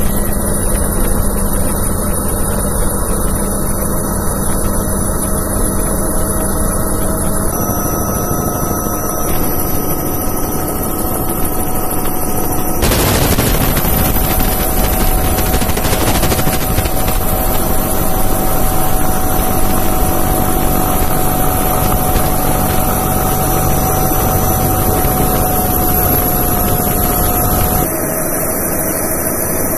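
CH-53K King Stallion heavy-lift helicopter in flight with a slung load: a steady high turbine whine from its three General Electric T408 turboshaft engines over a rapid, deep rotor beat.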